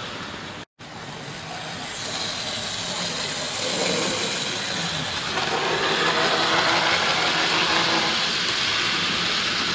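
Several model trains running round a layout together: a steady whirr of small electric motors and wheels on the track, growing louder over the first few seconds after a brief break in the sound.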